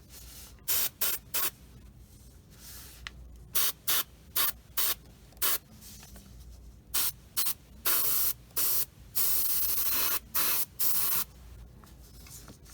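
Airbrush spraying paint in a run of short trigger bursts of hiss, with one longer burst of about a second past the middle.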